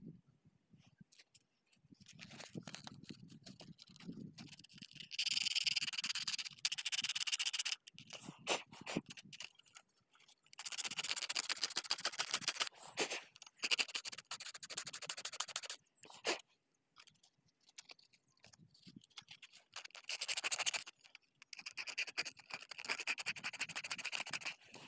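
Sandpaper scrubbed rapidly back and forth over the metal rings of a centre pivot irrigation slip-ring head to clean them, in three spells of rubbing: a few seconds in, again about ten seconds in, and near the end.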